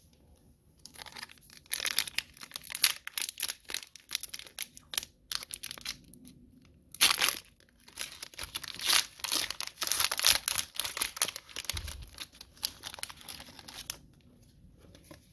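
Plastic wrapper of a 2020 Donruss football card pack being torn open and crinkled, a long run of crackling rustles with sharp snaps, loudest about halfway through.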